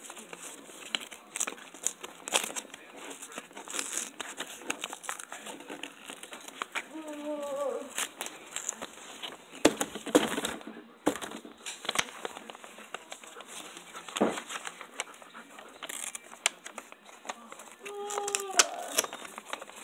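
A sheet of paper being folded and creased by hand, crinkling and rustling with many short, sharp crackles.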